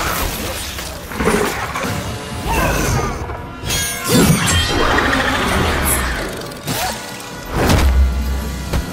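Film fight sound effects: several loud crashes with shattering and smashing debris, each with a deep rumble, over background music.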